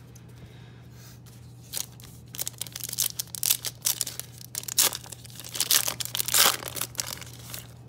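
A foil trading card pack wrapper being torn open by hand: after a short quiet, a run of crinkling rips and crackles, loudest near the end.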